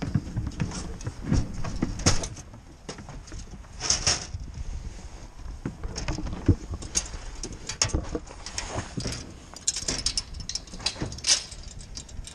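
Sheep shuffling in a livestock trailer: irregular hoof clatters and knocks on the trailer floor and metal mesh sides, over a low rumble.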